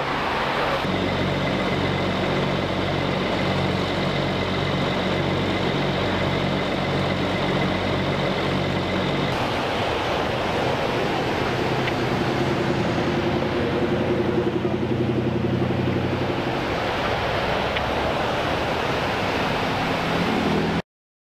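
Emergency vehicles idling on a highway shoulder, their engines running steadily with passing traffic; it swells for a few seconds around the middle as a vehicle goes by, and cuts off suddenly near the end.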